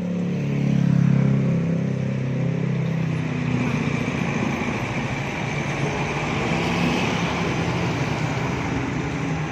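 Intercity coach's diesel engine pulling away, loudest in the first two seconds as it passes and then fading as it drives off, over a steady hiss.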